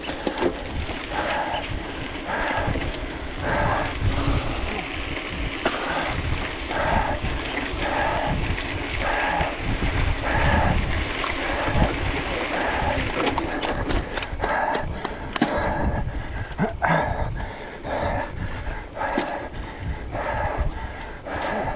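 Mountain bike ridden hard over rough ground: wind rumble on the action camera, with rattling knocks and clicks from the bike over bumps. Heavy rhythmic breathing, about two breaths a second, runs through it.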